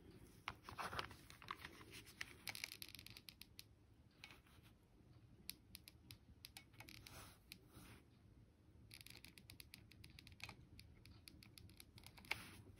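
Faint handling noise from gluing coquina shells onto a metal bezel with a hot glue gun: scattered small clicks and short scratching sounds, with a sharper click near the end.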